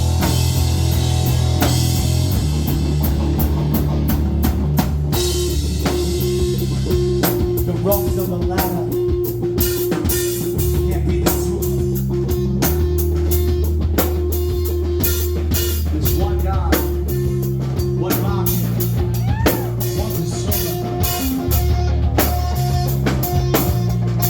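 Live rock band playing without vocals: a drum kit keeping a steady beat with busy cymbal hits, over a bass guitar line and electric guitar, which holds a long note from about five seconds in.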